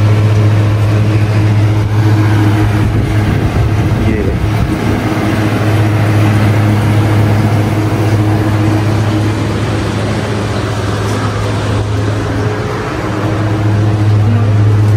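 A loud, steady low hum from running machinery, with a few evenly spaced higher overtones. It eases slightly for a moment near the end.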